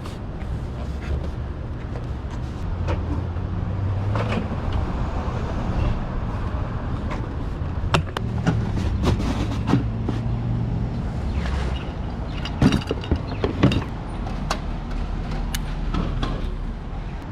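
Vehicle on the road, a steady low rumble of engine and road noise, with scattered clicks and knocks in the second half.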